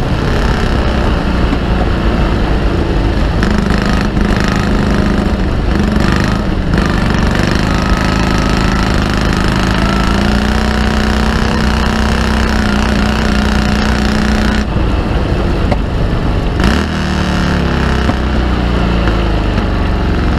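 Morgan Super Aero three-wheeler's V-twin engine running hard at racing speed, heard from the open cockpit with wind noise on the microphone. About three-quarters of the way through the engine note drops briefly, as when lifting off for a corner or changing gear, then climbs again.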